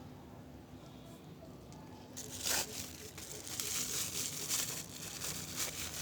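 Packaging crinkling and tearing as it is unwrapped by hand, starting about two seconds in with a burst of loud crackles and going on in quick, irregular crinkles.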